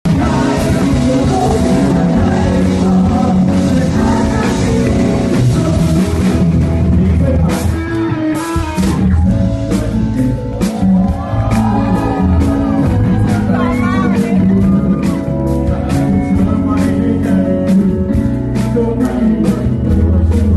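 Rock music with guitar and singing; a steady drum beat comes in about seven seconds in.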